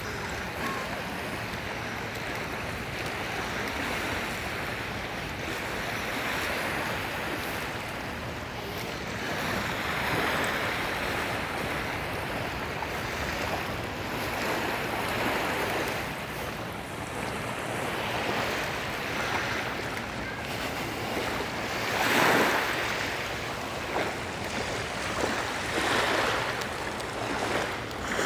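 Sea waves washing onto a beach, surging every few seconds, with the loudest surge about two-thirds of the way through. Wind buffets the microphone underneath.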